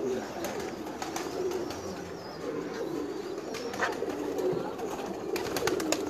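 Domestic pigeons cooing, with several low, wavering coos overlapping one another. A few sharp clicks come near the end.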